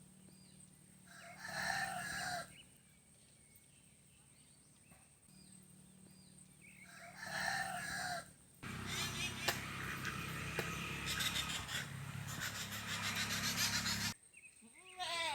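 A rooster crows twice, about six seconds apart. From about nine seconds in, a louder, dense noise with rapid ticking runs for about five seconds, then stops suddenly.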